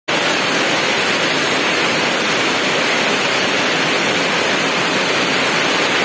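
Heavy rain pouring steadily in a rainstorm, a dense, even hiss.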